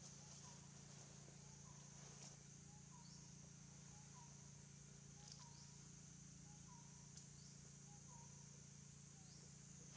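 Faint outdoor ambience: a steady high-pitched insect drone, with a soft short chirp repeating about once a second and a low steady hum underneath.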